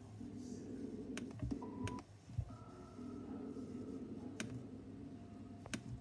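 Several sharp, separate clicks of a computer mouse and keys being worked, over a low steady hum, with a few faint held tones in the background.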